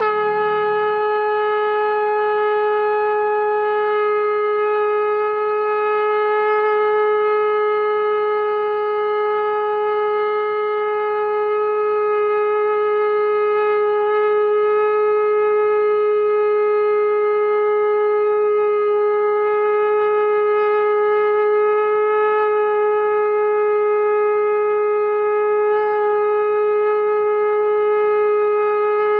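Conch shell (shankh) blown in one long, unbroken, loud note at a steady pitch.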